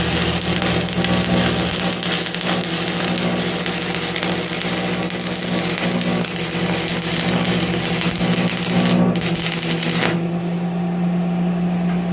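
Electric motor running steadily, belt-driving a shaft and pulleys on a home-built sawdust-evacuation rig, with a strong steady hum under a wide whirring hiss. The hiss drops away about ten seconds in while the hum carries on.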